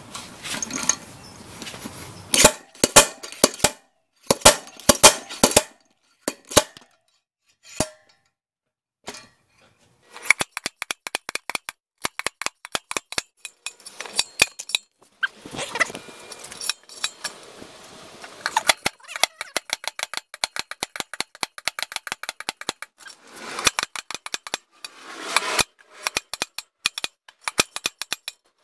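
Slide hammer bearing puller working a Suzuki DR650 rear wheel bearing: sharp metal clacks of the hammer weight hitting its stop. They come in loud clusters, then after a few seconds' pause in a fast run of several a second, as the stubborn bearing is driven out of the hub.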